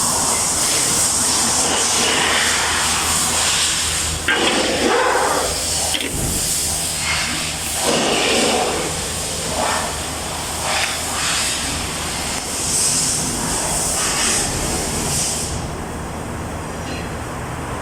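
GDI injector cleaning machine running with a steady hiss over a low hum, with irregular clatter of parts being handled; the hiss cuts off about 15 seconds in.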